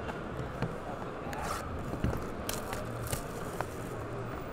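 A trading-card box and its plastic wrapping being handled and opened by hand: scattered clicks, scrapes and crinkles over a steady low hum.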